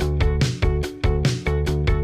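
Background music: an upbeat track with a steady beat and plucked guitar.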